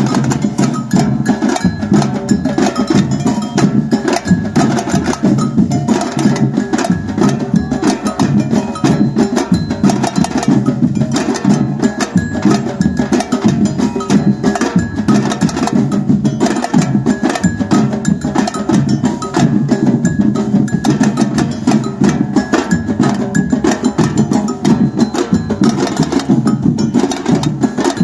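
Batucada samba percussion band playing a continuous, driving rhythm on drums and bells.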